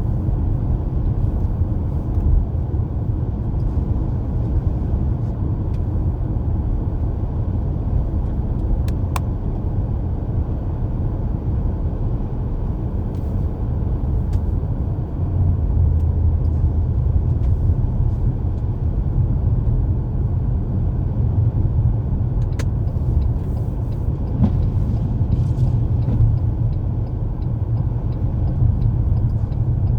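Steady low rumble of a car driving on a snowy road, heard from inside the cabin: tyre and engine noise, a little louder about halfway through, with a couple of faint clicks.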